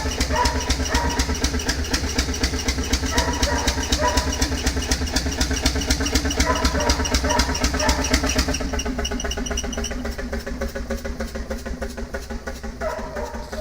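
Large engine running at a steady speed, an even rapid beat of firing strokes, growing somewhat quieter in the latter half.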